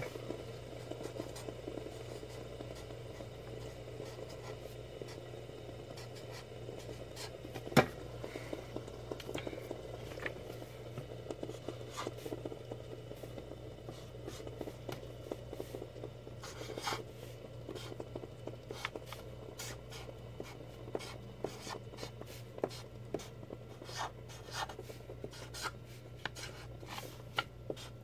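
Sharpie permanent marker writing on paper: faint scratching strokes and scattered small taps, with one sharp click about eight seconds in and more frequent ticks near the end, over a steady low hum.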